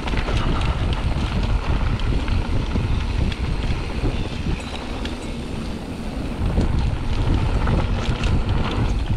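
Wind rushing over a rider-mounted camera microphone on a fast mountain-bike descent, with the tyres crunching over a rocky gravel trail and scattered knocks and rattles from the bike.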